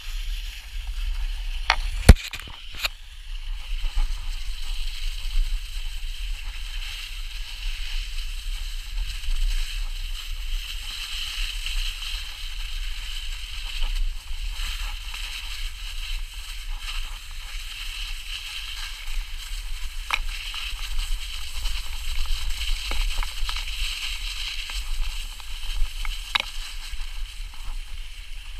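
Plastic butt sled sliding fast down a packed-snow slope: a steady hissing scrape of plastic over snow, with a low rumble of wind on the microphone. A few sharp knocks break in, the loudest about two seconds in.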